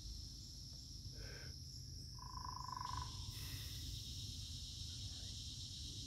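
Steady high-pitched insect chorus, typical of crickets, over a low rumble. A short animal call comes about one second in, and a longer, steady-pitched call of under a second about two seconds in.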